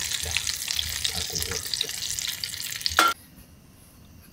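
Kushiage skewers deep-frying in hot oil: a steady crackling sizzle that ends abruptly with a short knock about three seconds in, leaving a much quieter background.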